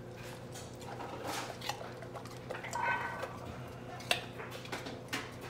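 Golden retriever crunching and chewing a raw carrot: a run of irregular crisp crunches and clicks, the sharpest about four seconds in.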